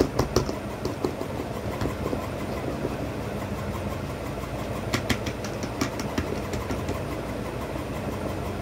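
A steady low mechanical hum, like a motor running, with a few light clicks, the clearest about five and six seconds in.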